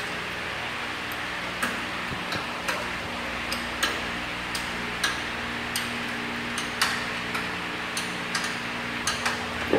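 Sharp metallic clicks at irregular intervals, roughly one or two a second, from a hand tool working the mounting bolts that fasten the 9FC21 corn mill to its steel stand, over a steady background hum.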